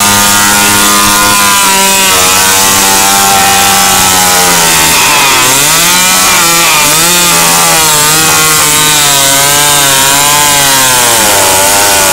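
Small two-stroke engine of a petrol stand-up scooter held at high revs while its rear wheel spins against the asphalt in a burnout. The sound is very loud; the pitch holds steady at first, then sags and climbs again several times in the second half.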